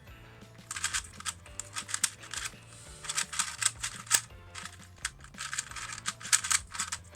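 YuXin Black Kirin 2x2x2 speed cube being turned fast during a timed solve: quick runs of plastic clicking that start about a second in and go on for about six seconds, with two short pauses.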